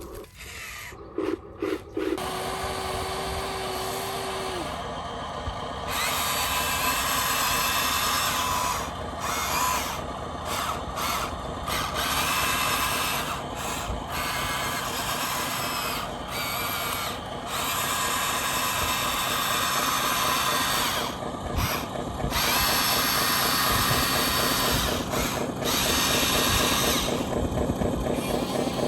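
Electric motors and gearboxes of a radio-controlled model construction machine whining in bursts of a few seconds, cutting in and out, over a steady lower hum.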